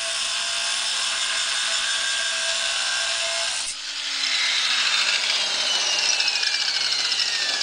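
Angle grinder running and cutting metal, throwing sparks, with a steady motor whine under a harsh hiss. About four seconds in the sound changes and the whine falls steadily in pitch over the remaining seconds.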